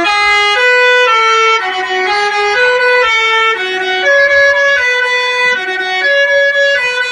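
Basuri musical horn playing a tune: a run of steady, held notes stepping up and down in pitch about twice a second, each note rich in overtones.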